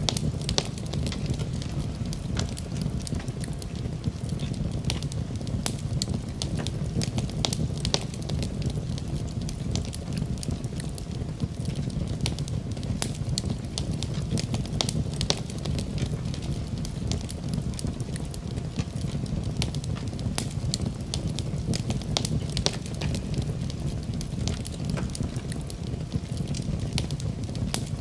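Wood fire crackling in a fireplace, with frequent sharp pops and snaps over a steady low rumble of the flames.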